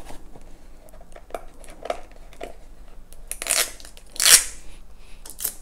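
A cardboard perfume box being handled and opened by hand: small taps and clicks, then two short scraping, papery noises past the middle, the second the louder, as fingers work at its foil-covered bottom end.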